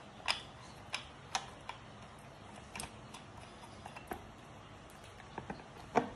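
Irregular light clicks and taps of blender parts and tools being handled during a motor replacement, about ten in all and unevenly spaced, the loudest near the start and near the end.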